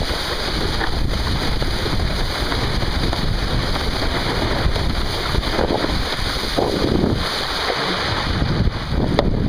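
Wind buffeting the microphone aboard a kite-towed boat under way, over a steady rush of wind and water.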